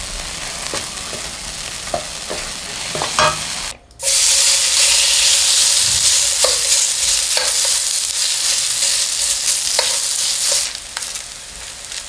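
A wooden spatula stirs and scrapes a thick tomato-and-onion sauce in a stainless steel pan. After a cut about four seconds in comes loud, steady sizzling: battered shredded onion is frying in hot oil for an onion pancake, with occasional clicks of the forks spreading it on the pan. The sizzling eases a little near the end.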